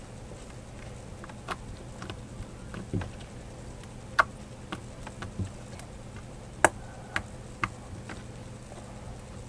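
About ten light clicks and taps at irregular intervals, the sharpest about a second and a half in, four seconds in and near two-thirds through, over a steady low electrical-sounding hum.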